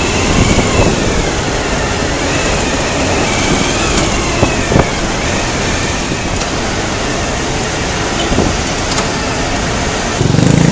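Motorcycles riding in traffic: steady engine and road noise.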